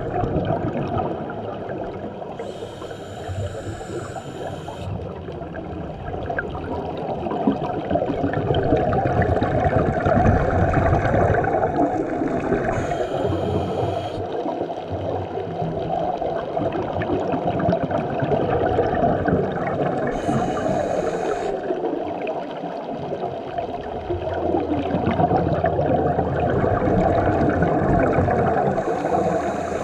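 Steady underwater rush of water, with a scuba regulator's breathing hiss coming back about every eight seconds.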